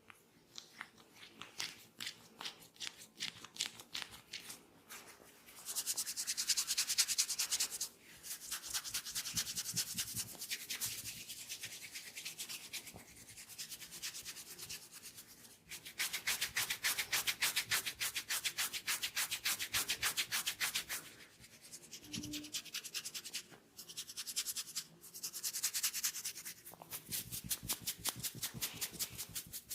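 Hands rubbing an oiled scalp and hair in a head massage: fast, even rubbing strokes in spells of a few seconds, loudest about six seconds in and again for about five seconds from sixteen seconds in.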